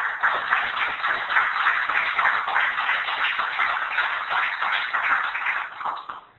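Audience applauding steadily for about six seconds, then cutting off suddenly near the end. It is heard thin and narrow-band, through a videoconference audio feed.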